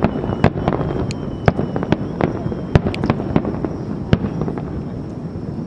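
Aerial fireworks bursting and crackling in quick, irregular succession, several sharp reports a second over a low rumble, thinning out near the end.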